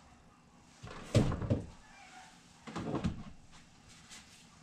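Two bursts of knocking and clattering, the loudest about a second in and another near three seconds, followed by a few lighter ticks.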